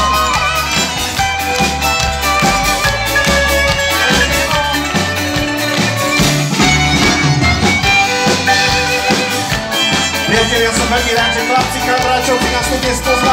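Live Slovak folk band music, an instrumental passage: violins carry the melody over accordion, cimbalom and a double bass keeping a steady beat.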